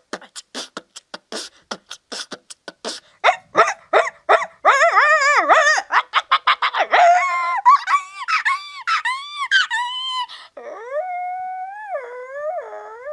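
A woman's vocal mimicry, made with her hands cupped over her mouth. It opens with a run of quick clicks, about four a second, then goes into rapid pitched yelps and a series of calls that rise and fall like animal cries. It ends in one long wavering call.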